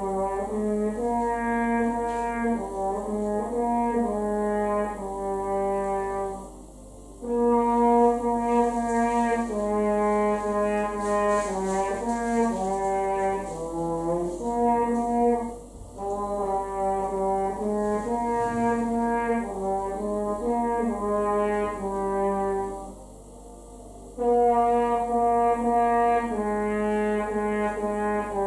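A horn playing a slow melody of held notes in phrases, breaking off briefly three times for breaths.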